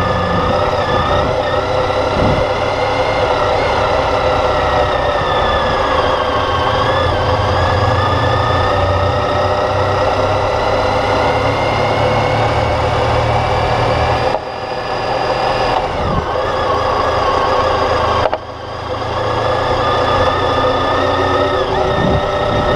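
Motorcycle engine running while riding, its pitch drifting gently up and down. Twice in the second half the sound drops off suddenly and then builds back up.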